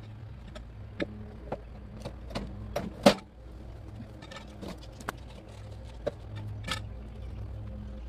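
Sharp knocks and clunks of a steel cant hook and heavy wood being shifted on a portable sawmill's bed, about a dozen irregular hits with the loudest about three seconds in, over a low steady hum.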